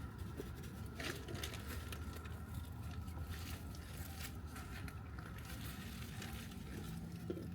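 Faint, irregular rustling and light handling noises as a wig and its packaging are handled, over a low steady hum.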